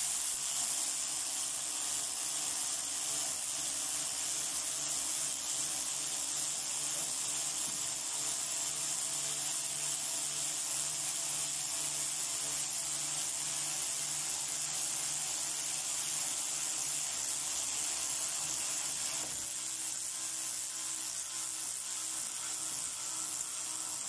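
Cordless 3/8" battery ratchets running under load, spinning locking nuts down onto M10 bolts: a steady electric-motor whir with gear whine. The note of the low tones changes about 19 seconds in.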